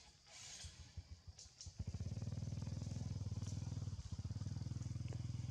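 A small engine running close by, starting about two seconds in as a fast, even low throbbing, with a brief dip in the middle. Just before it come a few short hissing rustles.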